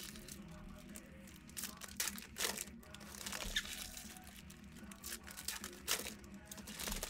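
Stacks of basketball trading cards being handled and sorted by hand: a scatter of short papery swishes and light taps as cards are slid, flicked and set down on piles.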